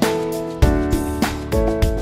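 Instrumental background music, with plucked notes and a regular beat.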